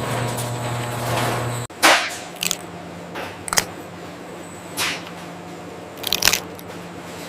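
Steady machine hum that cuts off abruptly after under two seconds, followed by a lower steady hum with about six short, sharp clicks or crunches at irregular intervals.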